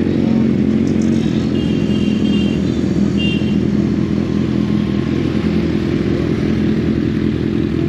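Kawasaki Z800's inline-four engine running steadily at low revs, close to the microphone, as the bike rolls slowly with no revving.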